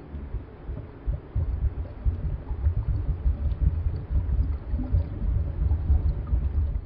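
Low, irregular underwater rumble of water moving over a camera housing as it is carried along. It swells about a second in and stays choppy.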